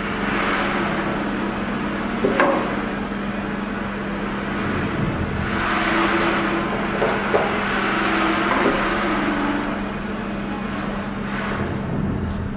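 A few light metallic clicks and scrapes as a screwdriver and crimped cable lugs are worked at a screw terminal block. Under them runs a steady background hum and hiss.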